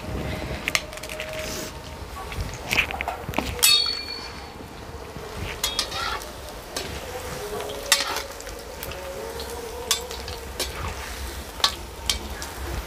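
Pakora batter frying in hot oil in a kadhai, a steady sizzle broken by short clinks of a metal spoon against the pan, one of them ringing. A steady low wind rumble sits on the microphone.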